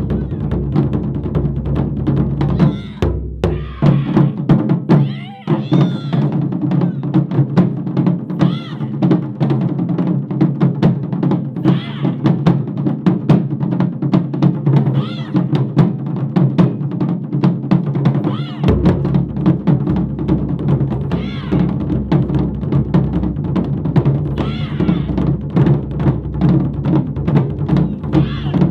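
Japanese taiko drum ensemble playing fast, continuous strokes. The deepest drum drops out about three seconds in and comes back about two-thirds of the way through.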